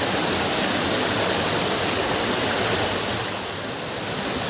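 Waterfall: a steady rush of falling water, a little quieter for a moment about three seconds in.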